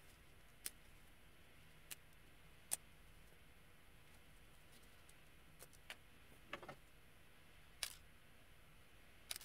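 Scattered small sharp clicks and snaps, about eight spread unevenly over several seconds, from handling a doll's plastic packaging and fasteners, with scissors snipping near the end.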